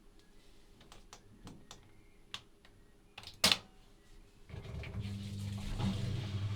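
Privileg Classic 30612 washing machine at the start of a 95° boil wash: a series of light clicks with one louder click a little past three seconds in, then a steady low hum starts about four and a half seconds in and holds.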